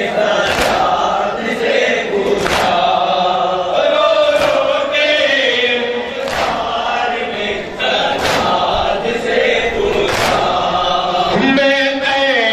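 Men chanting a noha, a Shia lament, in unison, with a sharp hand-on-chest slap of matam about every two seconds keeping the beat. Near the end a single sung voice carries the melody.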